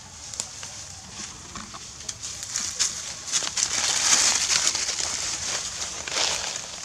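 Dry fallen leaves rustling and crackling under movement, with many short sharp crackles; the rustling grows louder about halfway through and again near the end.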